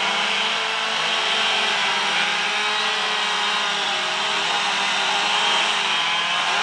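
Several two-stroke chainsaws running at once as carvers cut into blocks of oak, their engine pitches wavering up and down as the saws bite and ease off.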